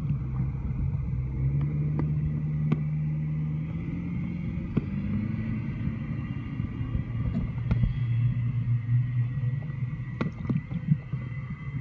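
Motorboat engine heard through the water as a low drone, its pitch stepping up and down a few times, with scattered sharp clicks.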